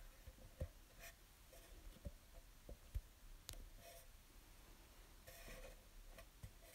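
Near silence: quiet room tone with a few faint, scattered clicks and soft rustles.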